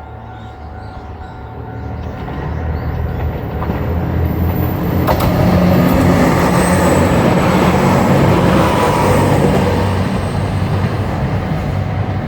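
JR Shikoku 2700 series limited express diesel railcar train passing through a level crossing. Its diesel engines and wheels on the rails grow louder, are loudest through the middle and ease off near the end, with a sharp clack about five seconds in. The crossing's warning bell rings steadily behind it.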